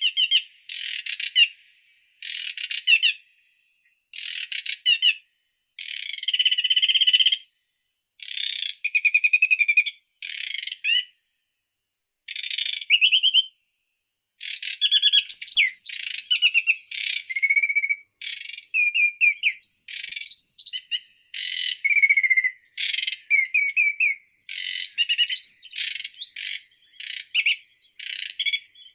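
Songbird singing short, varied chirping and trilling phrases about a second long, separated by brief pauses. About halfway through the singing becomes almost continuous, with higher notes added.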